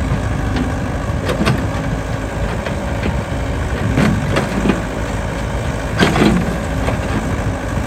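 Yanmar ViO70 mini excavator's diesel engine running steadily under load, with several sharp knocks, the loudest about six seconds in, as the steel bucket strikes and breaks water-soaked bricks of the old canal bank.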